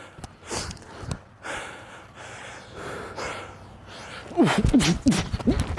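Heavy breathing and a few loud exhales from a winded athlete, followed near the end by a person's voice calling out loudly in short bursts.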